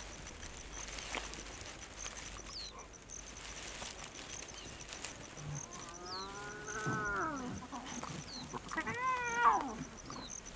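Ten-day-old leopard cubs mewing: one long, arching mew about six seconds in, then a shorter, higher and louder one about three seconds later.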